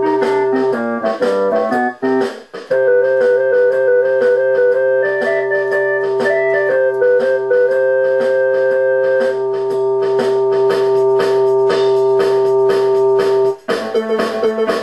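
Background music with a steady beat: an organ-like keyboard holds a long chord under a stepping melody. It breaks off briefly about two seconds in and changes to a different passage near the end.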